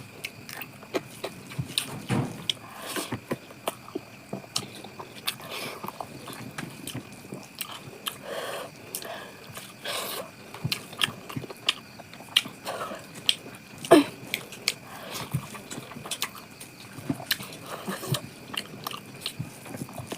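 Irregular small clicks and taps, with a short falling squeak about fourteen seconds in.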